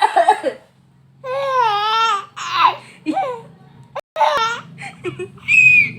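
A woman coughs once at the start, then a young child laughs and squeals in several short, high, wavering bursts, the last one a shrill squeal near the end.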